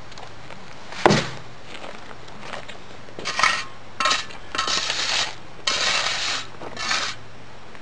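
Steel shovel blade scraping and patting wet concrete in short strokes, working it in around the well pipe. A single sharp knock about a second in is the loudest sound.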